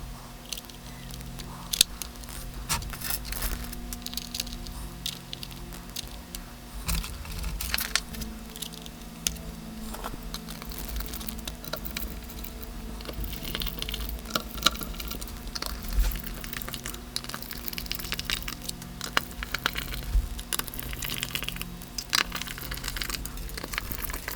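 Small screws being threaded back into a bass guitar by hand and screwdriver: scattered light clicks and scrapes of metal handling, over a steady low hum.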